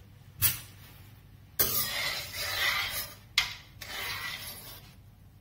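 Steel spoon stirring boiling, foaming milk in a steel kadhai: two stretches of scraping against the pan, with a sharp clink about half a second in and another about three and a half seconds in.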